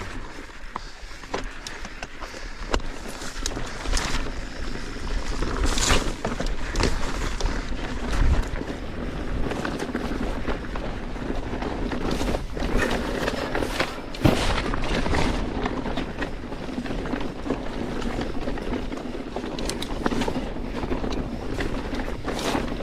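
Mountain bike descending a rocky trail: tyres rolling over loose stones, with frequent knocks and rattles from the bike over bumps and wind noise on the microphone. The sharpest knocks come about 6, 12 and 14 seconds in.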